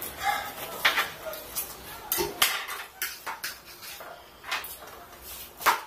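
An eating utensil scraping and clicking against a plastic bowl of instant noodles as the noodles are scooped up. It comes as a series of irregular sharp knocks, the loudest near the end.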